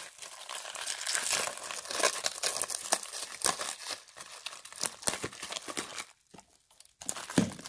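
Crinkling, rustling and tearing of packaging as a bundle of comics is unwrapped and handled, in a run of irregular crackles, with a brief pause about six seconds in.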